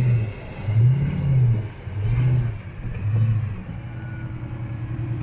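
Jeep Grand Cherokee engine revving up and down four times, about once a second, as the SUV climbs out of a river crossing onto the bank, then running steadily.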